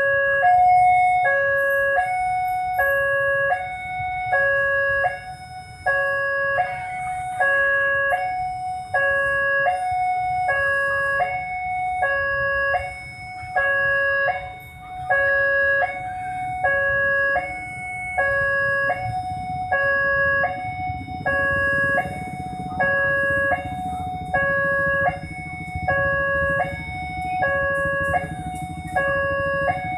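Level-crossing warning alarm sounding a two-tone electronic signal, a higher and a lower tone alternating evenly about once a second, warning of an approaching train. A low train rumble grows in the second half as the train nears.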